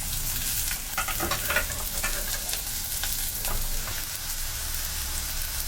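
Smashed boiled potatoes sizzling in butter in a frying pan, a steady hiss with frequent small crackles.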